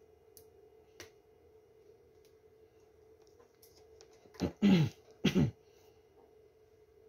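A person clearing their throat in three quick rough bursts with falling pitch, about four and a half seconds in. A couple of faint clicks come earlier over a low steady hum.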